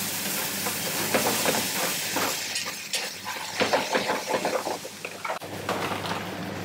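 Spaghetti frying in tomato sauce in a hot pan, with a steady sizzle and irregular crackles and pops as the sauce dries out and the pasta crisps on the bottom.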